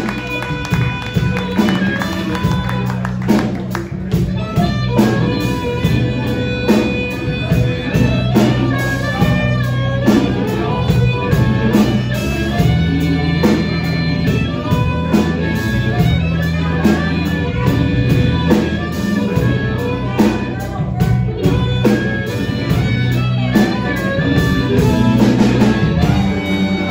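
Live blues band playing: electric guitar, electric bass and drum kit with a harmonica played into a microphone, held notes that bend over a steady bass line and regular drum beat.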